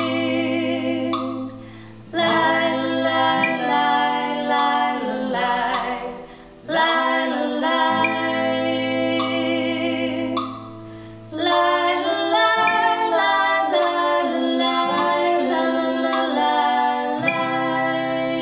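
A man and a woman singing a two-part harmony a cappella, slowly, in long held notes with vibrato. The notes come in phrases broken by short breaths.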